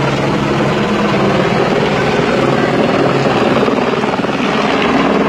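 Helicopter flying low overhead, its rotor and engine noise loud and steady.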